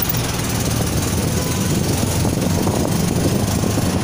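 Vehicle engine running steadily, a low drone with street noise around it.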